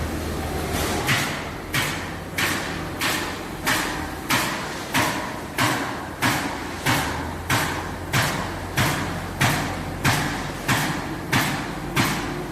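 Robot-driven pneumatic nail gun firing nails into a wooden truck bed in a steady rhythm, about three shots every two seconds, starting about a second in, over a steady low machine hum.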